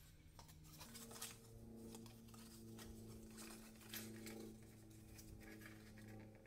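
Near silence: a faint held note of quiet background music, with light rustles and taps of cardstock being folded along its score lines, the most noticeable tap about four seconds in.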